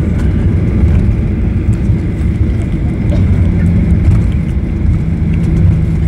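Cabin noise of a Boeing 737-800 rolling out along the runway just after touchdown: a steady low rumble from the wheels and the engines, which run without reverse thrust. A faint steady hum joins about halfway through.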